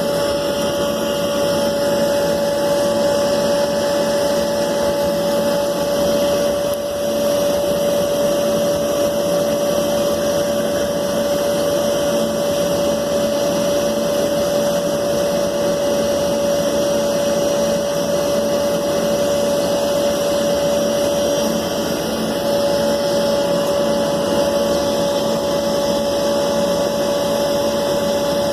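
Small electric motor running steadily with a constant high whine over a loud rushing hiss, typical of a handheld power tool such as a hot-air or extrusion plastic welder.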